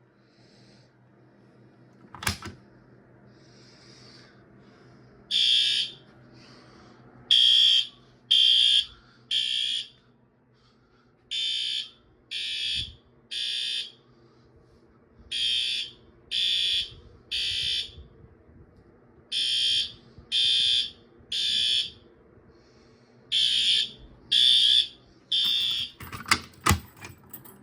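Fire alarm horn sounding the temporal-three evacuation pattern: three short beeps, a pause, then three more, repeated from about five seconds in. A sharp click comes about two seconds in, and several clicks come near the end.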